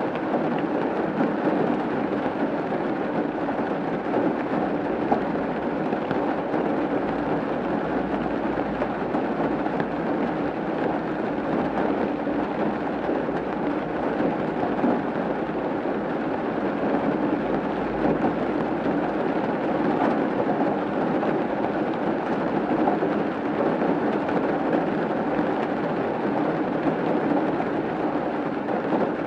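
Rain falling steadily on a roof, an even, unbroken hiss of many drops with no pauses.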